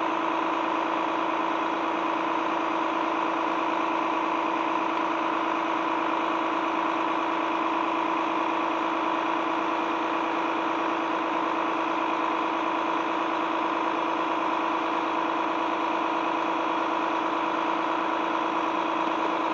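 Volvo FM high-reach fire truck's diesel engine running steadily to drive the aerial boom's hydraulics while the platform is raised. The pitch and level stay even throughout.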